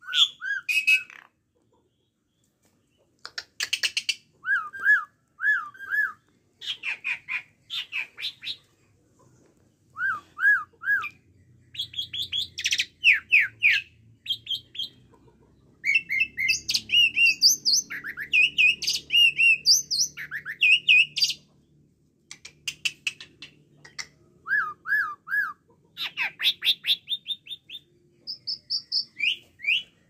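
Asian pied starling calling and singing close by: bursts of loud chattering and whistled notes with short pauses, including several phrases of three quick squeaky notes.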